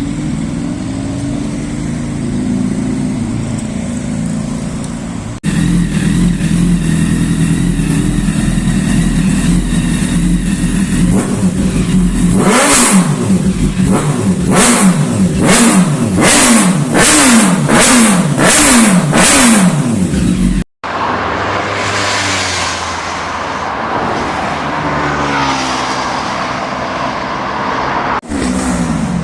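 Sport motorcycles' loud exhausts running and revving. In the middle a rider blips the throttle about once a second, each rev rising sharply and falling back with a crackle.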